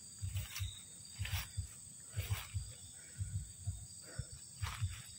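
Footsteps pushing through dry undergrowth and fallen palm fronds, about one heavy step a second, each with a short crackle of brush. A steady high insect drone runs underneath.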